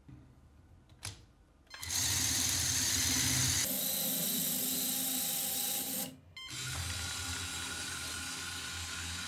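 Small LEGO electric motors whirring steadily, with gear noise, as they drive the wheels of a long LEGO car. A short click about a second in, then the motors run from about two seconds on, with a brief break around six seconds.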